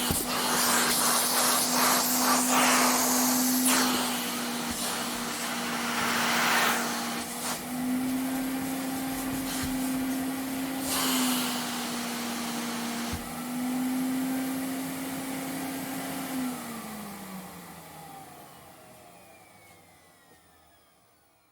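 Vacuum cleaner running: a steady motor hum under rushing suction air that surges louder several times. About three-quarters of the way through it is switched off, and the motor winds down with a falling pitch until it fades away.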